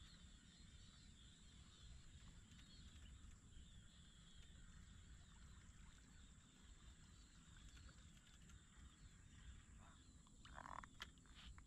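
Near silence: faint outdoor ambience with a low rumble and faint chirping, and a short louder call-like sound with a few clicks near the end.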